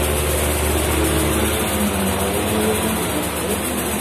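An engine running steadily, its pitch shifting up a little about halfway through.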